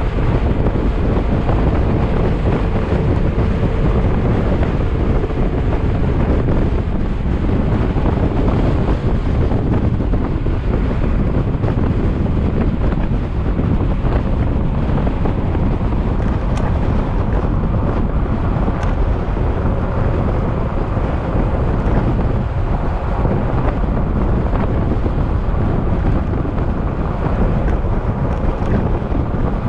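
Yamaha XMAX scooter's single-cylinder engine running steadily while riding, under heavy wind noise on the microphone.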